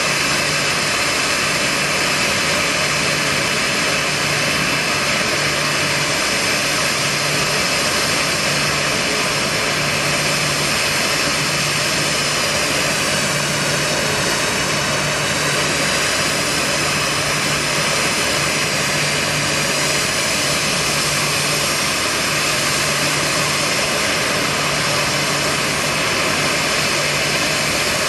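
Boeing 737-800's CFM56-7B turbofan engines idling on the ground: a steady rushing noise with a high fan whine that wavers slightly in pitch midway.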